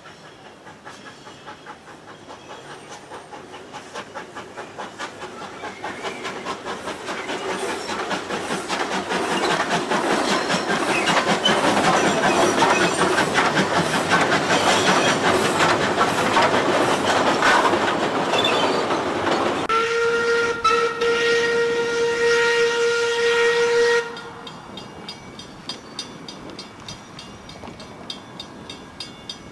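Steam locomotive W22, a Beyer, Peacock W-class 4-8-2, working a passenger train: its rapid exhaust chuffs and the running of the carriages grow steadily louder as it approaches. About twenty seconds in it sounds a single-note steam whistle, held for about four seconds. Then the sound cuts off suddenly to a much fainter background with light regular ticking.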